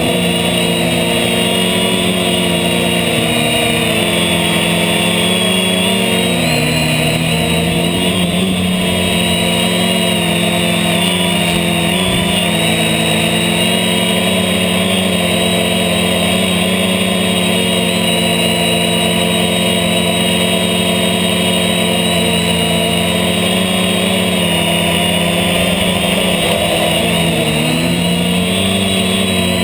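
HobbyKing H550 hexacopter's electric motors and propellers buzzing steadily in flight, heard from a GoPro mounted on its frame. Several pitches drift up and down together as the motor speeds change.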